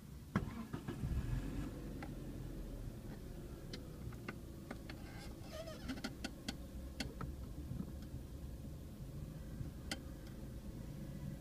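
Scattered sharp clicks and small knocks from the controls beside a car's steering column (ignition key and stalk) being handled, most of them in the middle, over a faint steady low rumble of the car.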